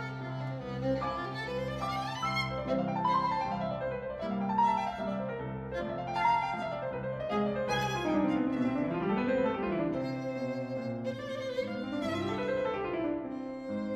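Instrumental music led by a violin over piano, with a cello line; the melody climbs and falls in repeated arches over held low notes.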